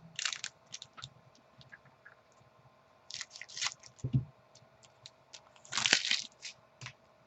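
Trading cards and packs being handled: short crisp rustles and clicks as cards are pulled and flipped, with a single low knock about four seconds in.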